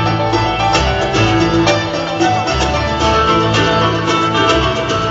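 Loud instrumental music.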